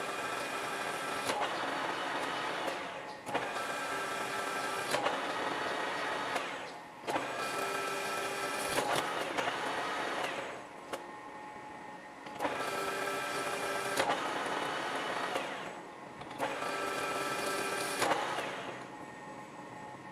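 Metal lathe cutting metal in five separate passes of about three seconds each, a ringing, whining cut that stops briefly between passes, with a longer pause about halfway through.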